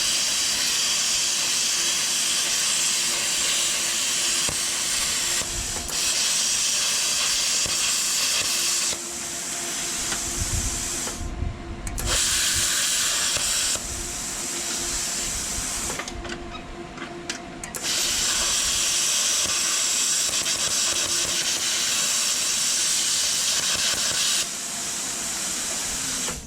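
Plasma cutter cutting steel: a loud, steady hiss of the arc and air with a constant hum underneath, dropping out briefly twice. It stops suddenly at the end as the breaker trips under the cutter's load.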